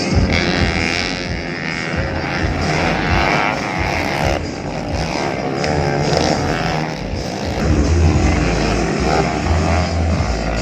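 Several motocross dirt bikes revving and running around a dirt track, engine pitch rising and falling as they accelerate and shift.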